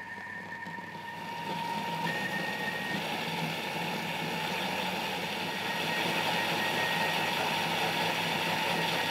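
Thermomix food processor blending a watercress coulis: a steady motor whine with the blade churning the liquid, started slow and turned up so that it grows louder in steps, about two seconds in and again around six seconds.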